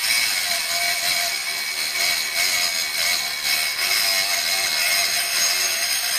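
Drill Master mini rotary tool with a cutoff wheel grinding through a steel nail: a steady gritty hiss over the motor's whine, whose pitch wavers under load. It is cutting very slowly, the underpowered tool bogging down as it works.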